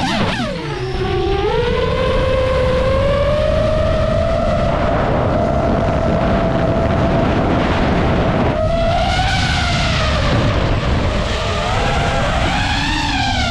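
DJI FPV drone's electric motors and propellers whining under changing throttle, with wind rushing past. The pitch dives sharply right at the start, climbs back within a couple of seconds and holds steady, then swings up and down near the end.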